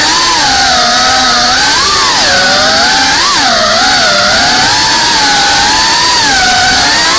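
FPV racing quadcopter's brushless motors whining loudly, heard from the drone itself; the pitch rises and falls with the throttle, with a few quick upward swoops.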